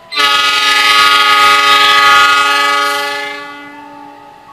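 Diesel locomotive's air horn sounding one long chord blast of several steady tones, starting suddenly, held for about three seconds, then fading away.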